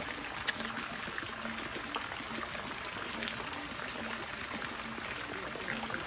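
Steady rush of running water, an even hiss with a few faint clicks over it.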